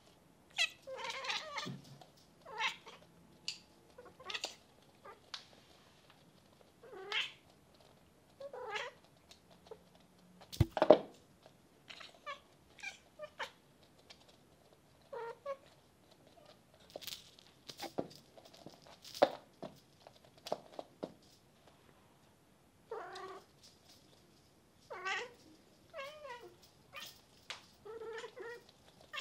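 Bengal cats making many short meows and chirps, some calls bending up and down in pitch. A single sharp knock about eleven seconds in.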